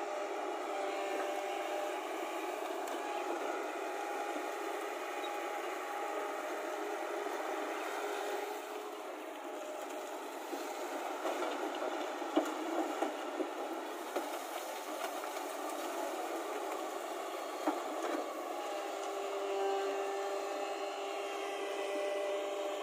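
JCB tracked excavator's diesel engine running steadily as the machine digs and swings. About halfway through, a few sharp knocks as a bucketload of wet soil is dropped into the tipper truck's bed, with one more knock a few seconds later.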